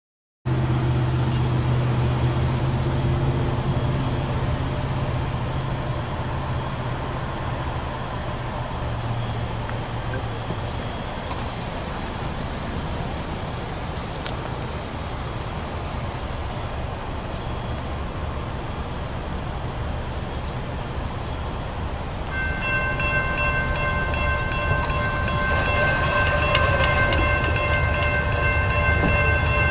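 Distant diesel freight locomotive approaching, heard as a steady low rumble; about 22 seconds in, its horn begins sounding a long, steady multi-note chord that holds to the end.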